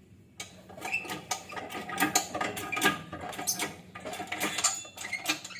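Irregular metallic clicking and clattering of hand tools, starting about half a second in.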